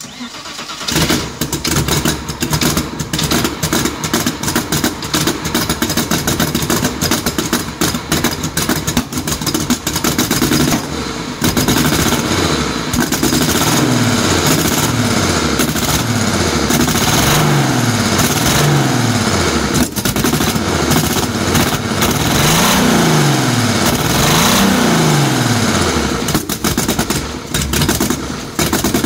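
BMW E36 engine converted to rotary valves, running with its intake manifold removed so the intake is open. It runs unevenly with irregular pops at first, then is revved up and let fall back several times from about twelve seconds in.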